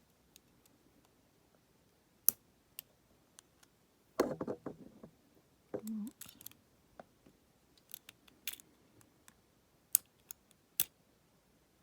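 Lock picking a Federal PL90PE padlock: the pick and tension wrench clicking and scraping against the pins in the keyway. Scattered single sharp clicks, with a short run of scraping about four seconds in.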